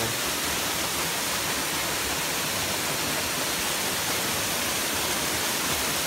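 A small waterfall pouring into a pool: a steady, even rush of falling water.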